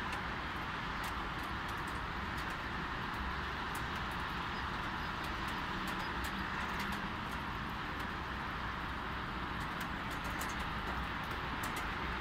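Light rain falling: a steady hiss with scattered sharp drop ticks, over a constant low rumble of distant road traffic.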